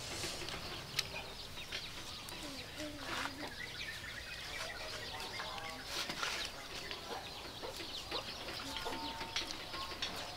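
Chickens clucking in the background, with scattered sharp clicks and crackles from the grill.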